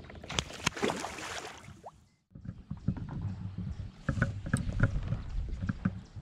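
A hooked northern pike splashing at the water's surface as it is brought to the board. After a brief gap about two seconds in come repeated knocks and thumps as the fish is handled on the inflatable paddleboard.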